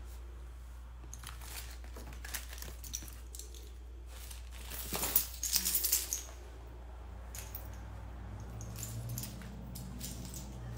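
Things being handled and moved about: scattered light knocks and rustling, with a louder burst of rustling and clatter about five seconds in, over a steady low hum.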